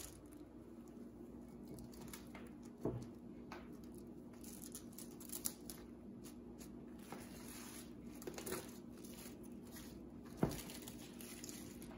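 Plastic cling wrap crinkling and crackling as it is stretched over a metal baking pan and pressed down around the rim. There are two soft knocks, about three seconds in and near the end.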